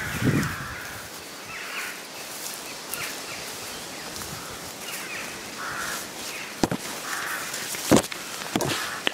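Footsteps pushing through tall grass and bushes, with leaves rustling against the microphone and a few sharp cracks, the loudest about eight seconds in. Crows caw a few times in the background.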